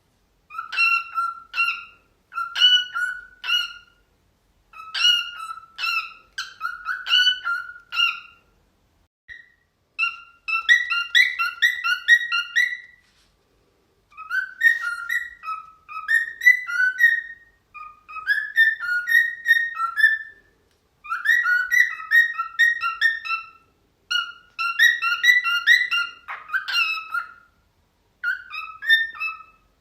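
Cockatiel whistling in short phrases of quick, chirpy notes, with brief pauses between them.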